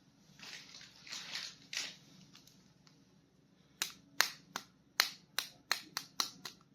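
Soft rustling of plastic toy packaging being handled, then a quick run of sharp plastic clicks, about four a second, over the last three seconds.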